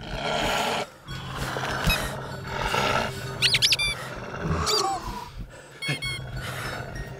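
A werewolf growling and snarling in short bursts over a low, steady music drone, with a few high squeaks in the middle.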